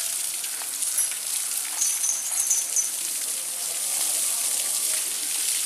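A strong jet of water from a garden hose spraying and splashing over an elephant's head and body, a steady hiss.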